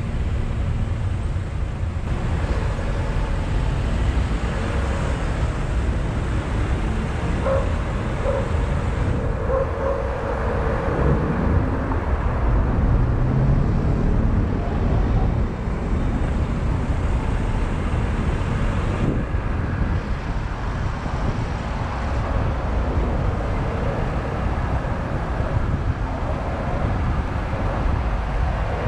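Car driving slowly in city traffic: a steady low rumble of engine and road noise, with the sound of the surrounding cars around it.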